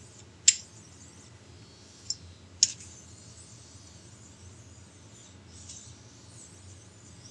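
Three sharp clicks of hard objects, the loudest about half a second in and again about two and a half seconds in, then faint light scraping: a deburring stone being handled and rubbed over a steel lathe T-nut.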